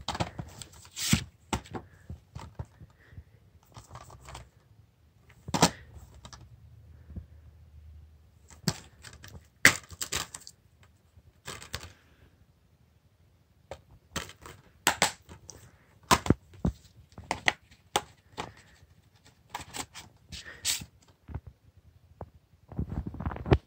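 Plastic Blu-ray case being handled and turned over in the hand: scattered clicks, taps and short rustles, with a brief quiet stretch about halfway through and a louder cluster of handling noise at the end.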